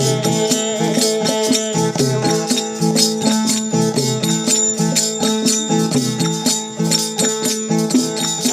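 Instrumental break in Indian devotional folk music: steady held tones under a quick, even beat of jingling percussion.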